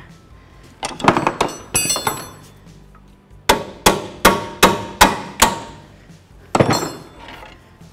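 Hammer blows on steel with a brief metallic ring after each: a quick cluster about a second in, then six evenly spaced strikes, and one more near the end. The blows drive the lower control arm bolt home through the arm on the front suspension.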